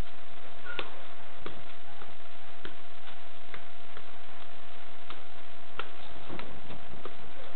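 Barefoot touches on a football being juggled and kicked on concrete: sharp irregular taps, about one or two a second. Under them runs a steady loud hiss with a faint constant hum from the recording.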